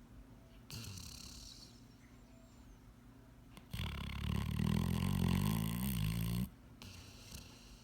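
Sleeping yellow Labrador retriever snoring. A softer, breathy snore comes about a second in, then a long, loud, deep snore of nearly three seconds starts around four seconds in.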